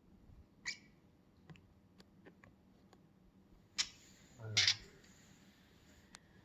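A budgie handling a plastic pen with its beak: scattered light clicks and taps, a sharp click about four seconds in, then a louder clatter just after.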